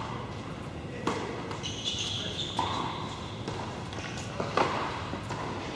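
Tennis balls bouncing and being hit: a few sharp knocks, spaced a second or two apart, ringing in a large indoor tennis hall, with a couple of brief high squeaks.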